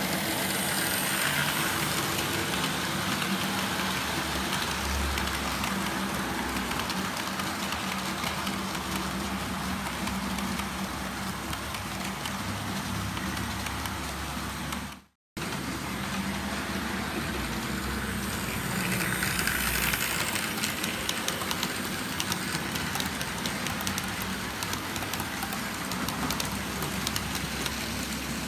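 OO-gauge model train running on the layout's track, a steady mechanical running noise with a faint ticking of wheels on the rails. The sound cuts out for a moment about halfway, then carries on.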